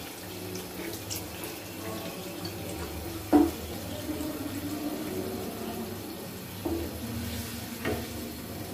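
Wooden spoon stirring split chickpeas through a pot of simmering tomato water: the liquid sloshing and bubbling, with a single sharp knock about three and a half seconds in and a couple of lighter ones near the end.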